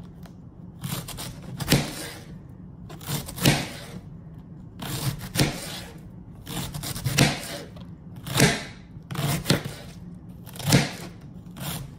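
Kitchen knife slicing a head of green cabbage into thin strips, each stroke cutting through the leaves and striking the cutting board, about a dozen cuts at roughly one a second.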